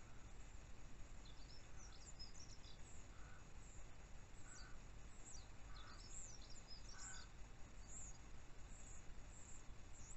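Faint wild birdsong: scattered short, high chirps and little trills over a steady low hiss.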